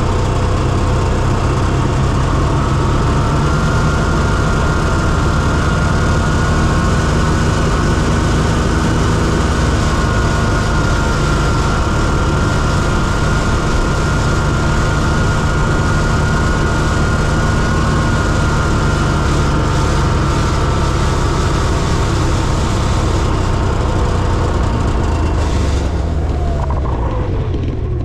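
Snowmobile engine running at a steady cruising speed, with a steady high whine over its low drone. Near the end the pitch drops as the machine slows to a stop.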